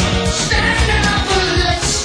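Background music: a Spanish-language rock song with a steady beat and singing.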